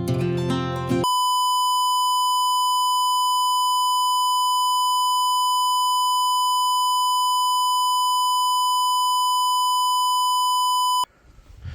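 A steady electronic beep tone, one unchanging high pitch, held for about ten seconds and then cut off suddenly. About a second of guitar music comes before it.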